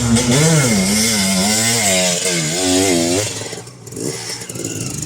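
Enduro motorcycle engine revving up and down over and over, its pitch wavering, then dropping away about three and a half seconds in before picking up again.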